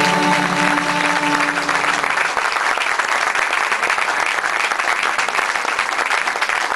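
Audience applauding loudly, with the last held chord of the choir and ensemble ringing under the clapping and dying away about two seconds in.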